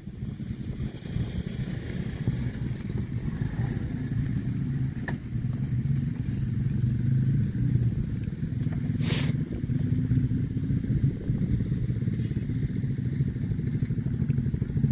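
A small engine running steadily at a constant pace. A brief sharp noise comes about nine seconds in.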